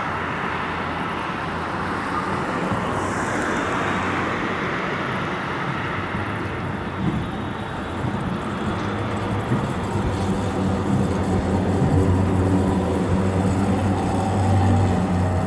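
Electric tram rolling slowly around a turning loop, its low motor hum and rolling noise growing louder over the last few seconds as it draws nearer, over a steady outdoor rumble.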